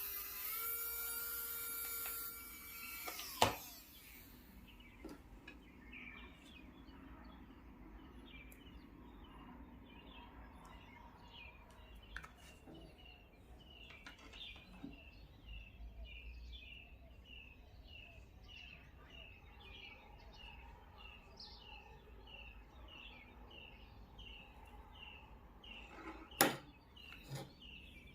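A small electric motor whines steadily at high speed for about three seconds, then stops with a click. After that a bird chirps the same short note over and over, about twice a second, with a couple of sharp clicks near the end.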